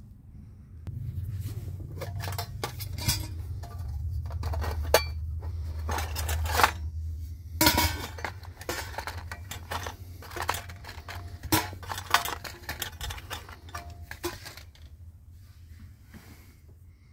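Irregular metallic clinks and clatters of a small metal tin being handled and opened, over a low rumble that fades after the first half.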